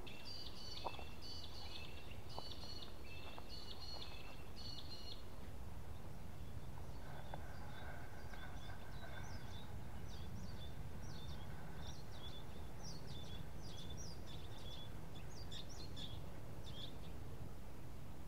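Wild birds singing: a repeated chirping phrase over the first five seconds, then a run of short high chirps, over a steady low rumble.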